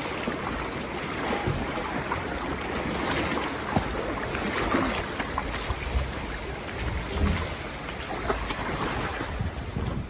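Steady rushing noise of overflowing creek floodwater, with a few faint knocks.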